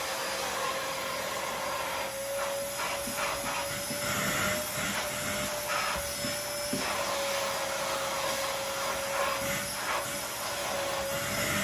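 Backpack vacuum cleaner running with a steady, slightly wavering motor whine, vacuuming bed bugs and their eggs out of a recliner chair. Irregular rasping comes from the nozzle working over the chair's upholstery.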